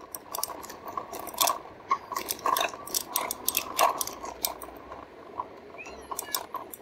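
Electric bike rattling and clinking lightly as it rolls over bumpy beach sand, with many irregular small metallic clicks.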